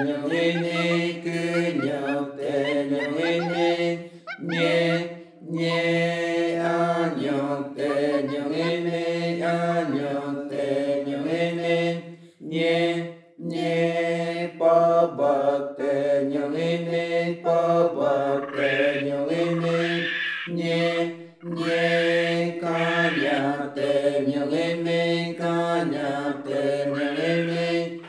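Voices chanting a repetitive sung melody in long phrases, with short pauses between them.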